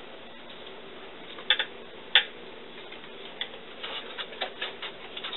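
Playing cards being handled and laid down on a felt card table: two sharper taps about a second and a half and two seconds in, then a run of lighter clicks near the end.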